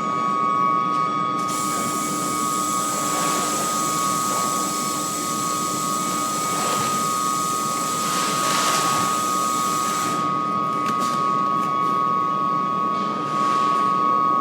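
Coreless induction melting furnace running on aluminium scrap: a steady high-pitched whine from the induction coil, over a hiss that is brighter for the first several seconds.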